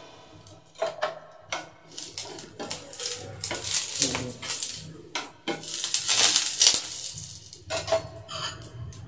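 Kitchen utensils clinking and knocking against dishes and a pan, a run of short irregular knocks and clatters.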